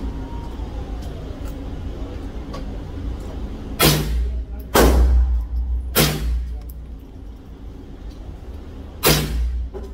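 Four shots from an HK .22 LR semi-automatic rifle: three about a second apart, then a fourth some three seconds later, each with a short echo off the range walls. A steady low rumble runs underneath.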